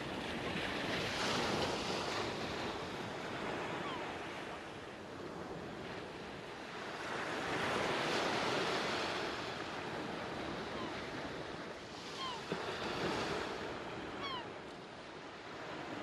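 Sea waves breaking and washing in three slow swells, each rising and ebbing over several seconds. A few short, high chirps come in the second half.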